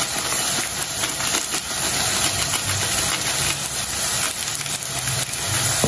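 Chicken karahi frying in mustard oil in a steel pot: a steady sizzling hiss with small crackles.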